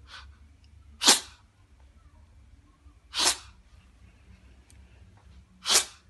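A domestic cat sneezing repeatedly in a sneezing fit: three sharp sneezes about two seconds apart, after a fainter one at the very start.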